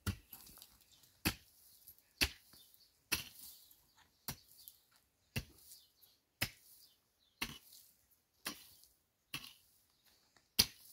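A pickaxe striking hard, dry, stony ground, about one blow a second, each a sharp thud with a short gritty trail after it.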